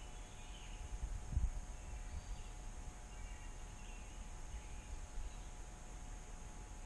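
Outdoor ambience with no gunshot: gusts of wind bumping the microphone, one stronger bump about a second and a half in, and faint short bird chirps every second or so.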